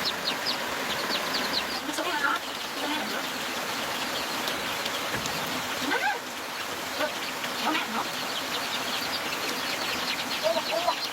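A steady rush of rain or running water, with runs of rapid, high chirping bird calls at the start and near the end, and a few short lower calls in between.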